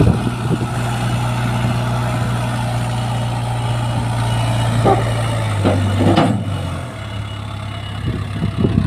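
Heavy diesel engine of earthmoving machinery running steadily under load. Its pitch steps down about six seconds in as the revs fall, and the sound gets quieter. A couple of short knocks come just before the drop.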